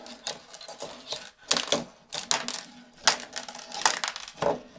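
A small puck-shaped LYNX Bluetooth speaker being handled on a desk: a string of irregular clicks and light knocks.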